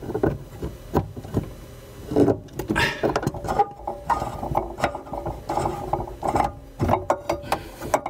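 Pliers and hands working loose the faucet's supply-line fittings under a sink, making irregular clicks, knocks and scrapes of metal and plastic.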